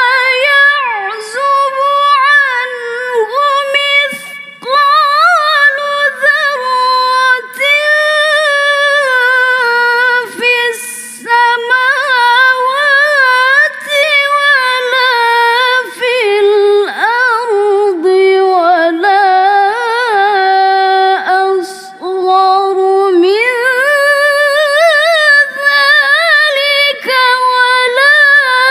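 Young woman reciting the Quran in the melodic tilawah style, drawing out long, high, ornamented notes with wavering runs. The voice breaks off briefly a few times, around four, eleven, sixteen and twenty-two seconds in, then resumes.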